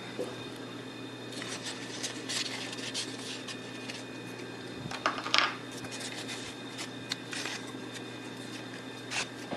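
Custom water-cooled PC running its first loop test: the pump and fans hum steadily, with scattered light clicks and taps now and then.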